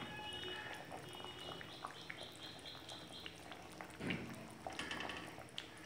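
Fish curry bubbling gently in a wok as a spatula moves through the gravy with light scrapes and taps. Faint repeated high chirps sound in the background, with a brief louder sound about four seconds in.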